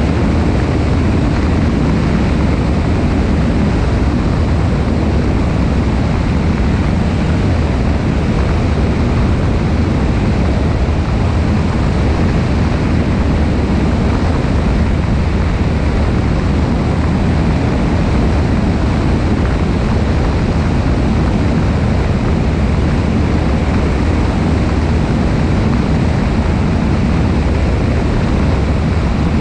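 Steady drone of a Cessna 172's piston engine and propeller, heard from a wing-mounted camera with wind rushing over the microphone.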